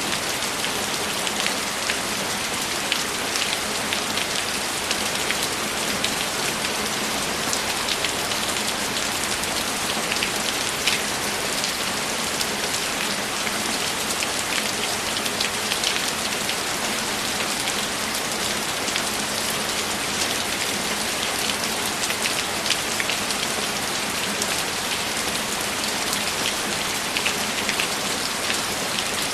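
Steady heavy rainfall: an even hiss of rain with many single drops standing out as sharp taps.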